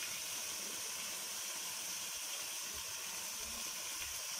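Chicken pieces sizzling in mustard oil and their own released juices in a pot over high heat, a steady hiss, as the water the meat gives off cooks away.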